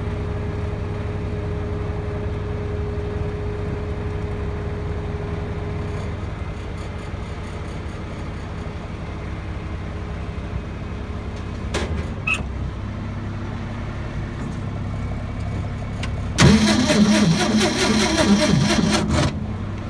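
The truck engine idles steadily, with two sharp clicks a little past halfway. Near the end, the Ford engine on the Vactor vacuum unit is cranked on its starter for about three seconds in a rapid, even chug. It turns over without catching and stops suddenly. This engine is said to be cold-blooded.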